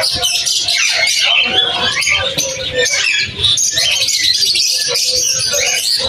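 A flock of zebra finches chirping all at once, a dense, continuous chatter of short calls.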